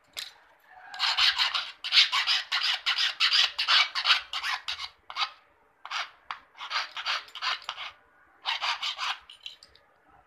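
Flat hand file rasping across a metal key blank in quick back-and-forth strokes, about four a second, broken by short pauses, cutting the teeth of a new key.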